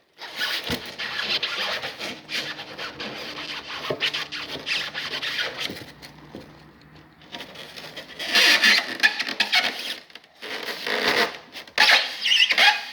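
Styrofoam being cut with a rocking back-and-forth motion: uneven rubbing and scraping strokes, louder in bursts about two thirds of the way through and near the end, with a faint low hum underneath in the first half.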